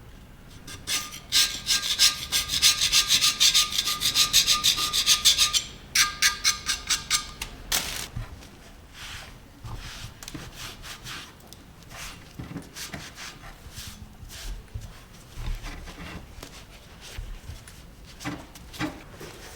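Hand rubbing on the vise's metal parts. First comes a spell of fast, loud back-and-forth strokes with a faint ring, then a run of slower separate strokes about seven seconds in, then lighter scattered rubs and clicks.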